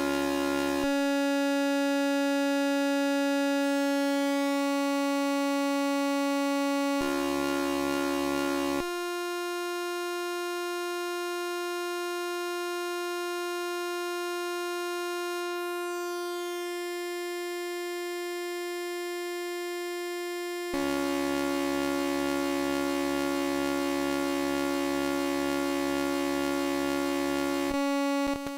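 Eurorack modular synthesizer oscillator holding one steady pitch while its tone colour switches abruptly several times as the waveform is reshaped. It is bright and buzzy at first, thinner about a second in, buzzy again around seven seconds, then a purer, slightly quieter tone from about nine to twenty-one seconds, then buzzy again, breaking up into a brief stutter near the end.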